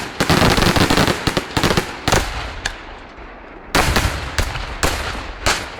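Aerial fireworks exploding: a dense run of rapid bangs and crackles in the first two seconds, then a fresh cluster of loud bangs about four seconds in, each trailing off in echo.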